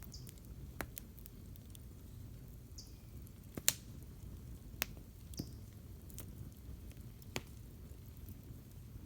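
Campfire wood crackling: scattered sharp pops a second or so apart, the loudest about three and a half seconds in, over a low steady rumble, with a few faint short high chirps.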